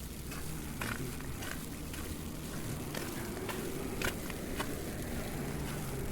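Outdoor street ambience in falling snow: a steady low rumble of traffic and wind, with scattered light ticks and crackles at irregular intervals.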